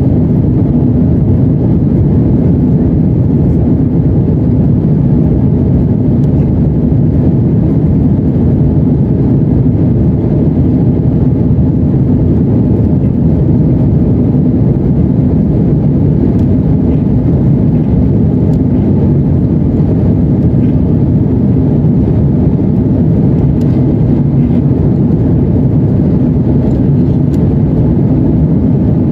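Embraer E175 cabin noise during the climb after takeoff: the GE CF34-8E turbofans at climb power and the airflow make a loud, steady low rumble with a hum in it.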